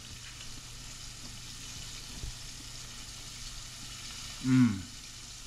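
Hot oil in a stovetop pot sizzling steadily from deep-frying. About four and a half seconds in, a short hummed 'mm' with a falling pitch from someone chewing.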